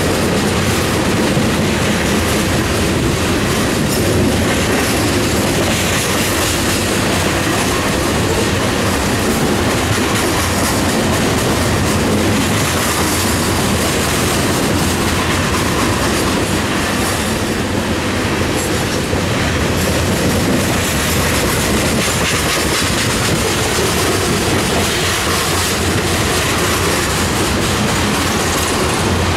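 Loaded coal cars of a Union Pacific coal train rolling past on steel rails: a steady, continuous rush of wheel and rail noise.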